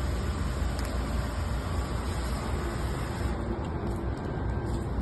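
Steady rumbling noise, heaviest in the low end, with no distinct events.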